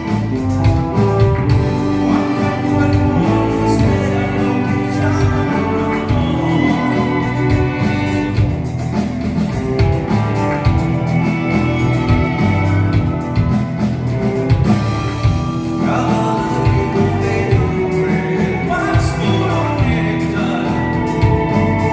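Symphony orchestra playing an arrangement of a rock song, with singing over a steady beat.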